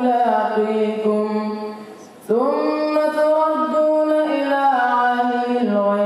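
A male reciter chanting the Quran in Arabic, holding long drawn-out melodic notes with ornamented turns. He breaks off for a breath about two seconds in, then goes on.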